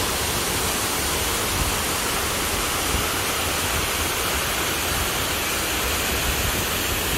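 Acquafraggia waterfalls: a steady, loud rush of falling water crashing onto the rocks, with a deep rumble underneath.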